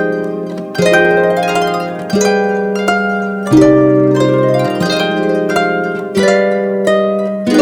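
Background music: a plucked-string, harp-like melody over steady bass notes, each chord struck and fading, with a new one about every second and a half.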